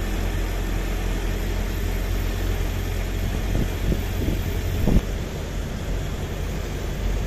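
Tata 1512 truck's diesel engine running under load as the truck climbs a ghat road, heard from the cab as a steady low hum under road and wind noise. There are a few knocks, the loudest about five seconds in.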